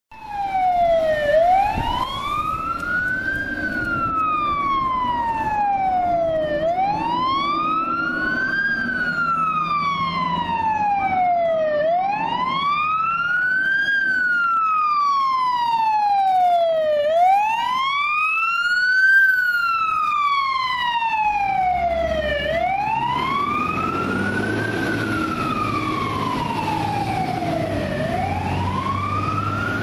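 Fire department emergency vehicle siren wailing, rising and falling slowly, about one full cycle every five seconds, with a second, fainter siren sweeping faster above it. A heavy vehicle's engine rumble grows louder about two-thirds of the way through.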